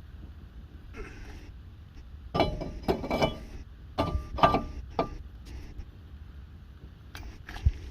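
Metal tools and car parts clinking and clattering in a series of sharp knocks: a cluster about two and a half to three and a half seconds in, another around four to five seconds, and one more near the end.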